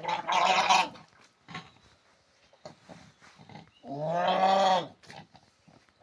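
Young calf bawling twice: a short call right at the start and a longer, clearer one about four seconds in.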